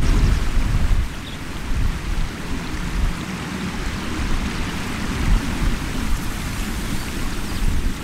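Shallow river water rushing and rippling over stones as a steady hiss, with wind buffeting the microphone in irregular low rumbles, strongest in the first second.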